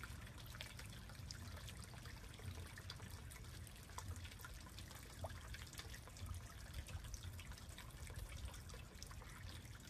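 Faint trickling pond water, with many small scattered drips and splashes at the surface.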